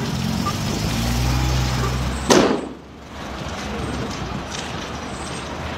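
Vehicle engine running steadily, then a single loud bang a little over two seconds in. After it the engine sound drops away, leaving quieter road noise.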